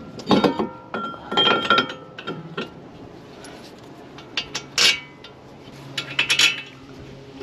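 Steel brake caliper bracket clinking and knocking against a new front brake rotor as it is set back in place, with a few sharp metal knocks and brief metallic ringing.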